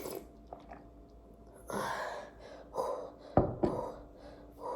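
Short breathy gasps and exhales close to the microphone, four in all, with a sharp click about three and a half seconds in, followed by a weaker one.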